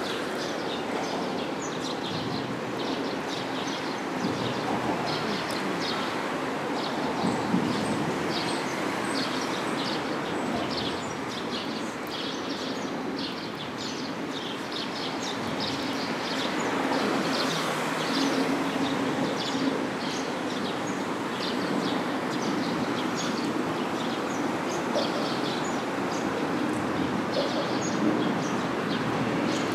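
Stray cat purring steadily in a continuous rumble close to the microphone, with short bird chirps throughout.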